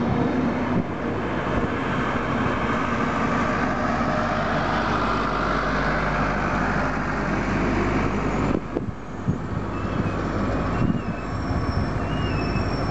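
Double-deck InterCity passenger coaches rolling past on the track: a steady rumble of wheels and running gear, easing for a moment about two-thirds of the way through, with faint high wavering squeals near the end.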